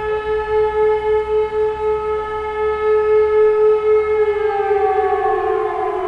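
Old German Elektror WWII electromechanical siren (high-tone unit, about 420 Hz) and an E57 motor siren sounding together on the fire alarm signal, heard from a few hundred metres away. They hold one steady, wavering tone, then about four seconds in the pitch begins to fall as the sirens wind down at the end of a blast.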